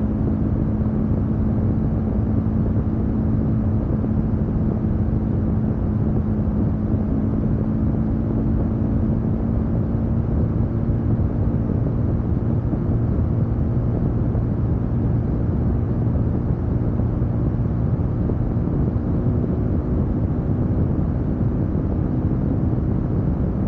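Cyclone RX3 motorcycle engine running steadily at cruising speed. Its hum is even, with no gear changes or throttle blips.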